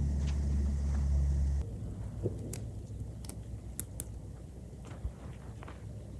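Wind rumbling on the microphone, cutting off abruptly about a second and a half in. After it come scattered faint ticks and light rustling.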